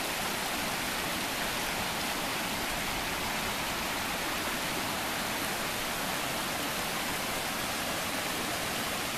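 A headwater creek flowing, a steady, unbroken rush of water.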